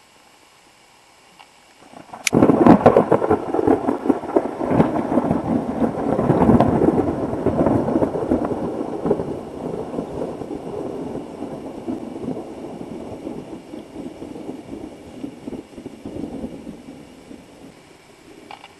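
Close thunder: a sharp crack about two seconds in, then a long rolling rumble that slowly fades away over some fifteen seconds.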